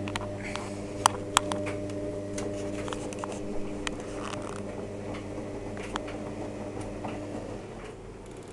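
Washing machine on a 95 °C boil-wash main wash: the drum motor hums steadily as the drum turns, with scattered clicks and taps, two sharper ones about a second in. The motor hum dies away near the end.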